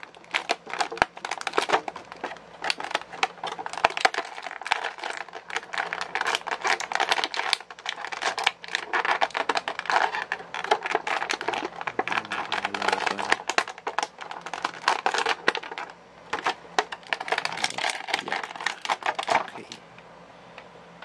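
Plastic toy packaging crinkling and clicking as it is handled, with many quick irregular clicks and crackles that die down near the end.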